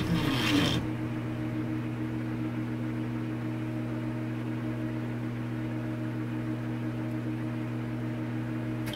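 The song's last chord ends about a second in, then a steady low drone of a few held tones sounds without change and cuts off suddenly near the end.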